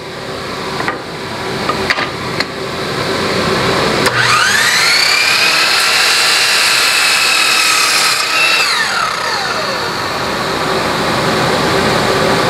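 Electric miter saw motor whining up to full speed about four seconds in, running steady for about four seconds, then winding down as the trigger is released. A dust collector's steady rushing noise runs underneath.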